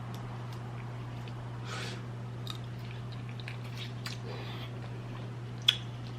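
A person chewing shrimp and rice close to the microphone: soft wet chewing and smacking with scattered small clicks, and one sharp click near the end. A steady low hum runs underneath.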